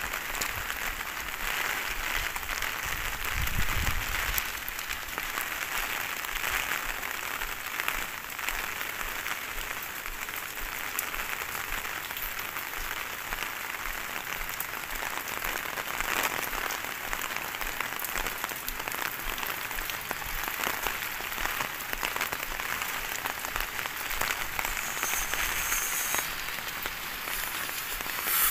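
Heavy rain falling steadily, a dense, even hiss on the wet street and roofs. A brief low rumble comes about three seconds in.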